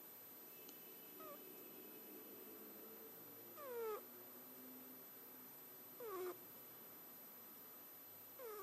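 Scottish Fold cat snoring in its sleep: each breath gives a short, falling, whistle-like squeak, a faint one early and three clearer ones about two and a half seconds apart.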